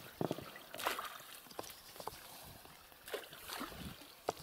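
Faint, irregular splashes and knocks as poles are beaten on the water from an inflatable boat, a way of driving fish toward a set net, over low water noise.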